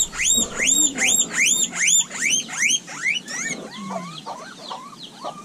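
Guinea pig wheeking: a fast run of about a dozen high squeals, each rising and falling, about four a second. After about three and a half seconds the calls turn fainter and lower.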